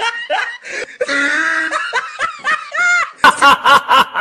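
Laughter in short repeated bursts. About three seconds in it breaks into a fast, loud run of ha-ha bursts, about six a second.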